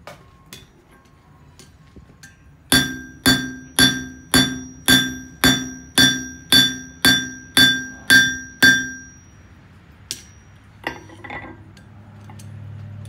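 Hand hammer striking a hot copper-and-nickel mokume gane billet on a steel anvil: twelve even blows, about two a second, each ringing out, as the drilled holes are forged flat. A few lighter metal clinks follow near the end.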